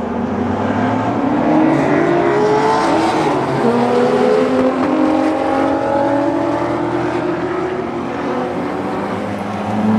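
Several race cars' engines running on the track at once, their pitch climbing again and again as they accelerate through the gears.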